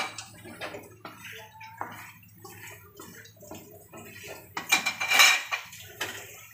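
Wooden spatula scraping and knocking against a large aluminium wok while stirring shrimp, with a louder clatter about five seconds in.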